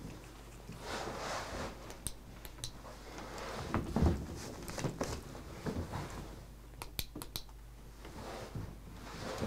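Footsteps and shuffling of a performer moving on a stage floor, with a heavier thud about four seconds in and a few sharp clicks around seven seconds, over a faint steady hiss.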